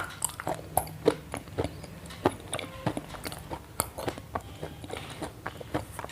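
Crunchy chewing: a run of crisp, irregular clicks, about two or three a second.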